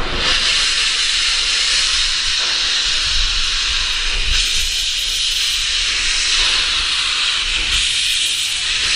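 Small steam tank locomotive hissing steadily as steam blasts from its open cylinder drain cocks while it moves off slowly.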